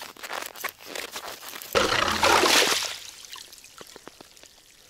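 Hand ice auger's blades crunching through ice in quick strokes, then about two seconds in a sudden loud rush for about a second as it breaks through and water wells up into the hole. Faint trickling and dripping follow, fading away.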